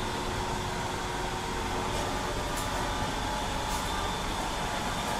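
A steady droning hum with hiss, with a few faint ticks in the middle.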